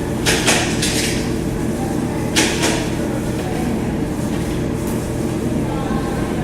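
Tape being pulled off the roll in a few short rasping rips, two near the start and two more about two and a half seconds in, over a steady low background hum.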